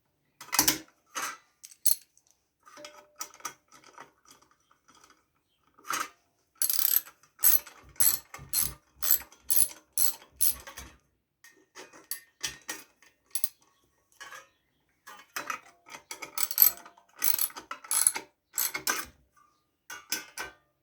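Ratchet wrench clicking in runs of strokes, about two clicks a second, as a nut is tightened on a small tiller engine.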